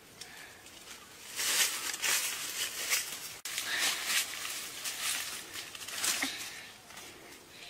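Leaves and branches rustling in several short bursts as they are pulled and handled.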